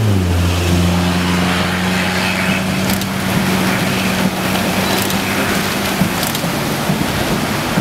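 Car engine running inside a moving vehicle, its hum dropping in pitch at the start and then holding steady, under a steady rushing of wind and rain on the car.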